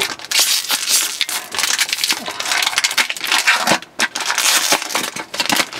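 Foil wrapper of a Pokémon card booster pack crinkling and crackling as it is torn open by hand, a dense run of small crackles with a brief lull just before the four-second mark.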